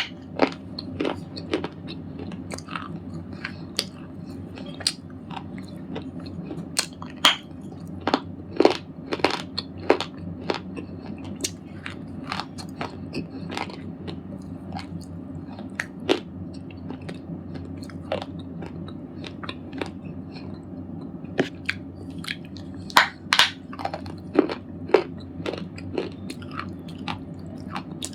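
Red slate ball being crunched, with many irregular sharp cracks of dry, brittle material breaking up, coming thickest about a third of the way in and again near the end. A steady low hum runs underneath.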